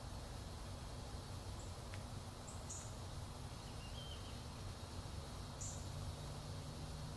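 Outdoor ambience: a steady low background rumble with a few faint, short, very high-pitched chirps, about two and a half and five and a half seconds in, and a faint tick about two seconds in.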